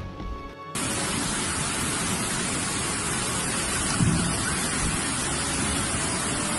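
Floodwater rushing down a street in a muddy torrent: a loud, steady roar of water that starts abruptly under a second in, with a low thump about four seconds in.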